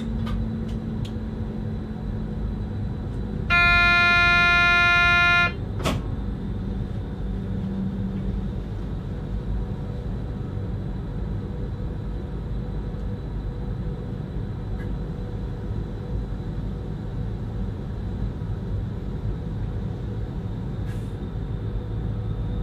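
Cab of a Stadler FLIRT 3 electric multiple unit, a steady low rumble throughout. A few seconds in, a single steady horn-like tone sounds for about two seconds, and a sharp click follows shortly after.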